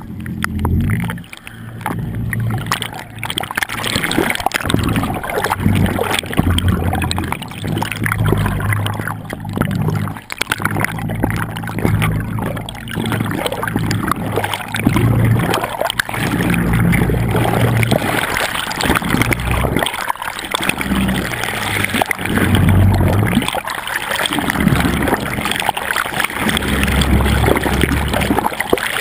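Sea water gurgling and splashing around a camera held just under the surface, with an uneven low rumble that swells and fades.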